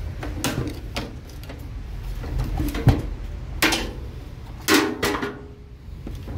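Plastic tabs and frame of a microwave oven door clicking and snapping as they are pried and pulled apart, a few separate sharp clicks, the loudest between about three and a half and five seconds in.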